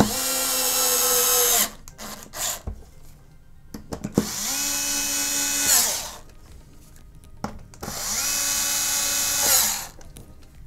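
Handheld electric screwdriver driving the green body screws into an Xbox One S's metal housing: three runs of motor whine of about two seconds each, each spinning up at the start. Light clicks and knocks fall between the runs.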